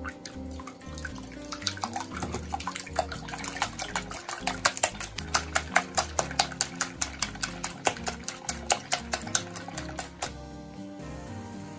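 Wire whisk beating raw eggs in a glass bowl: quick clicking of the wires against the glass, about four a second, starting after a second or so and stopping shortly before the end. Background music plays under it.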